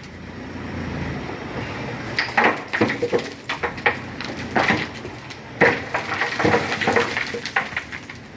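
Loaded dump truck's diesel engine running with a steady low rumble as the truck backs slowly over loose stones. Sharp knocks and cracks come from about two seconds in.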